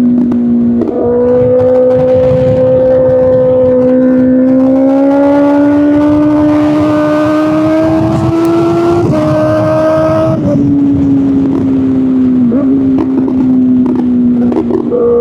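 Kawasaki Ninja ZX-6R inline-four through an Arrow Pro Race exhaust, pulling steadily with its note slowly rising for about nine seconds. The pitch then steps down twice and falls away as the throttle comes off, with a little crackle near the end.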